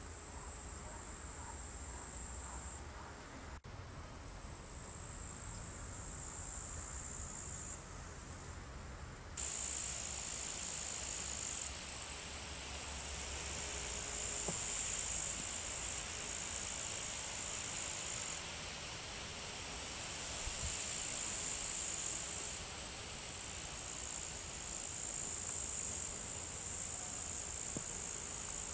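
Steady, high-pitched chirring of meadow insects such as grasshoppers and crickets stridulating, with abrupt jumps in level a few times, louder from about nine seconds in.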